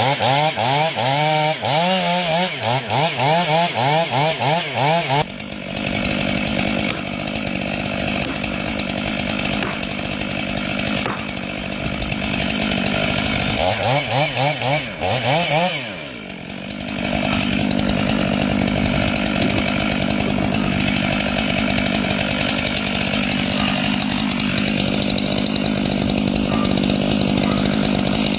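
Two-stroke chainsaw revved up and down in repeated throttle blips, then held at a steady pitch while cutting into oak. It is revved again about fourteen seconds in, dips briefly, and settles back into a steady cut.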